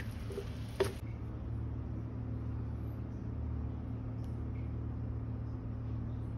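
A wooden spatula clicks and knocks against a wok a few times, the loudest knock just before a second in. After that a steady low hum carries on, with only a few faint ticks over it.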